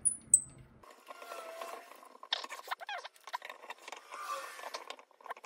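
Handling noise from parts of a small refractor telescope being fitted together by hand: two sharp, high clicks right at the start, then scattered small clicks, scrapes and rubbing of plastic and metal parts, with a brief squeak about halfway through.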